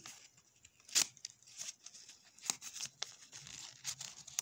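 A sheet of paper crinkling and tearing as it is cut with the small cutter blade of folding trauma shears, with three sharp clicks spread across the few seconds.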